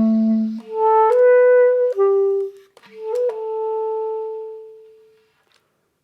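Solo clarinet playing a short interlude phrase: a low note, then three higher notes, ending in a long held note that fades away about five seconds in.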